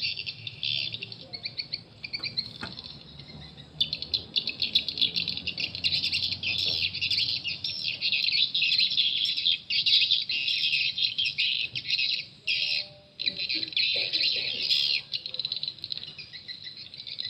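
Recorded swiftlet calls played through the horn tweeters of a swiftlet-house sound player: dense, rapid high-pitched chirping and twittering, a calling sound used to lure swiftlets into a bird house. It breaks off briefly about two-thirds of the way through.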